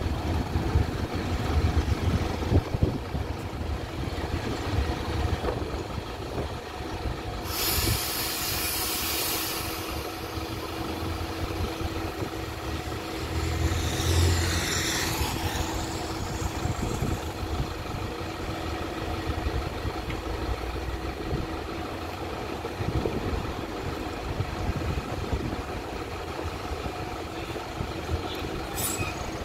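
Street traffic with a heavy vehicle's engine idling close by, a steady low rumble. A sharp hiss lasting about two seconds comes about eight seconds in, and a passing vehicle swells and fades about fourteen seconds in.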